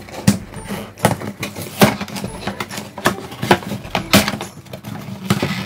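Cardboard box being opened by hand: irregular sharp crackles and scrapes as the end flap is pried and pulled open.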